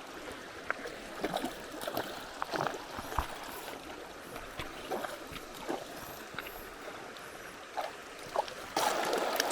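Creek water trickling and flowing steadily, with scattered small splashes and knocks; the water noise grows louder and fuller near the end.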